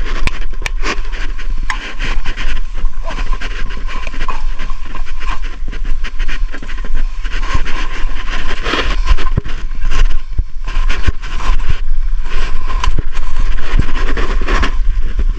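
Close handling noise of aerosol spray paint cans and a backpack being packed: many short clicks, knocks and rustles over a steady low rumble.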